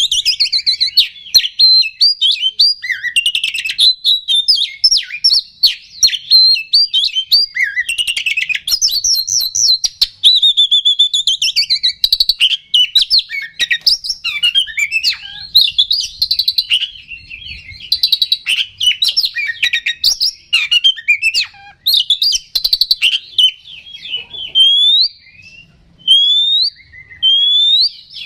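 Male Oriental magpie-robin (kacer) in full, continuous song: a fast, varied run of warbles, chirps and whistles. Near the end it gives three rising whistles about a second and a half apart. This is the loud, excited singing hobbyists call gacor.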